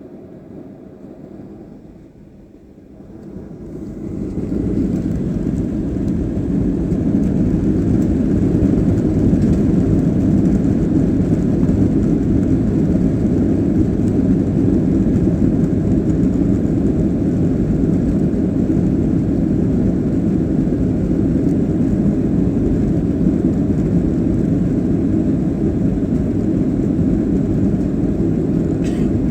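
Boeing 737-800's CFM56 turbofan engines spooling up to takeoff thrust, rising steeply about three to five seconds in, then running loud and steady as a deep rumble through the takeoff run.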